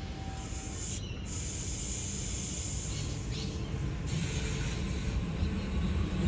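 Steady low rumble and hiss of an approaching NSW TrainLink D-set (Mariyung New Intercity Fleet) electric train, growing louder as it draws near, the hiss getting stronger about two-thirds of the way through.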